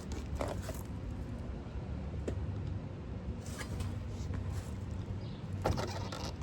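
Scattered scrapes and clicks of hand tools working at a tire puncture, trying to pull out a stuck object, with a larger scrape near the end, over a low steady hum.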